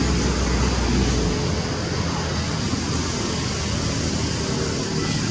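Steady outdoor background noise, a hiss-like haze with a low rumble underneath that drops away about a second and a half in.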